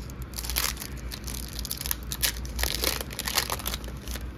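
Foil wrapper of a Pokémon TCG Trick or Trade mini booster pack crinkling as it is handled and pulled open by hand, in irregular crackles that are densest midway through.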